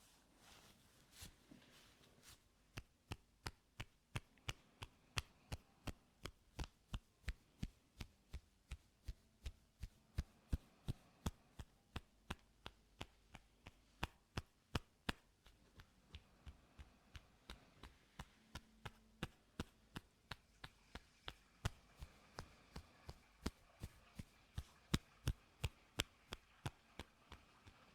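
Quiet, steady rhythmic tapping close to the ear, about two to three sharp taps a second, starting a couple of seconds in, as in an ear-cleaning session.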